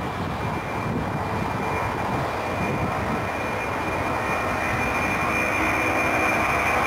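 Boeing 747's jet engines running with a steady high whine over a broad rush of noise, growing slowly louder.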